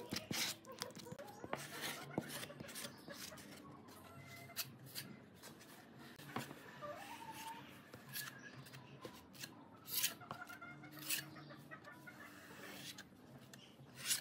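A flat spreader blade scraping and smearing thick clear resin across a pine board, heard as irregular short scrapes and clicks.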